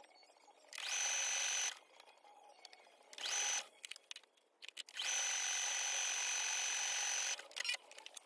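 Brother electric sewing machine stitching in three runs: a short one about a second in, a brief one around three seconds, and a longer one from about five seconds, each starting and stopping abruptly with a steady high motor whine.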